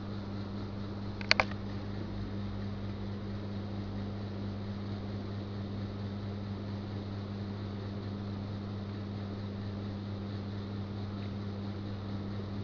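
A steady low hum with a faint hiss, broken once by a quick double click a little over a second in.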